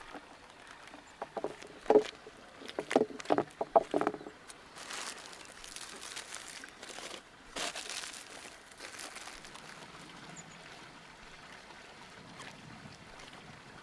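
A quick run of sharp clinks and knocks with a short ringing tone, then liquid sloshing and splashing for a few seconds before it settles to a faint steady background.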